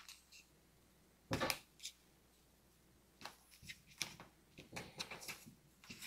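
Faint rustling and crinkling of a dry beef summer sausage casing and string being handled as a knot is tied, with one louder rub about a second and a half in and scattered small rustles and clicks later.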